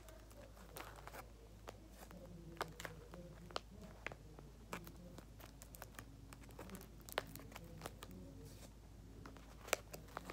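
Paper crinkling and rustling with many small scattered clicks and taps as a handmade paper squishy is handled and worked on.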